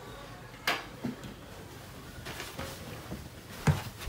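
Interior door being pushed open, with a sharp knock a little under a second in, a few quieter knocks and shuffles, and a louder thump near the end.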